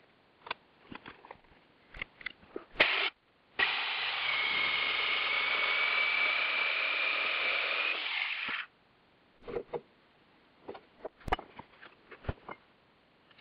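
Handheld electric jigsaw cutting through a block of scrap 2x4, running steadily for about five seconds in the middle with a thin steady whine. Before and after, light knocks and clicks of the wooden block being handled.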